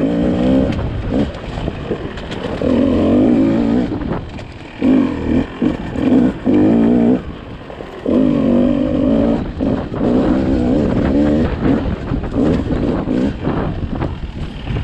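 Beta 200 RR two-stroke enduro motorcycle engine, heard from the rider's seat, revving in repeated short bursts of throttle and dropping back between them, with sharp knocks scattered through.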